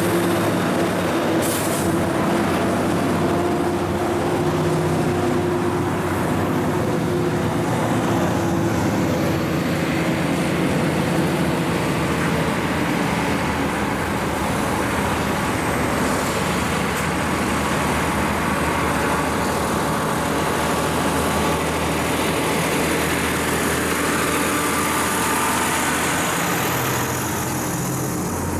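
Heavy diesel trucks with trailers driving past one after another while climbing the grade, their engines pulling under load with a steady drone over the rumble of tyres.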